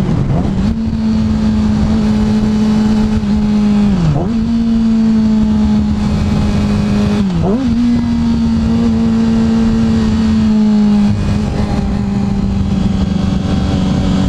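2007 Yamaha R6's 600 cc inline-four engine running at a steady highway cruise. Its pitch dips sharply and comes straight back up twice, about four and seven and a half seconds in, then settles slightly lower near the end.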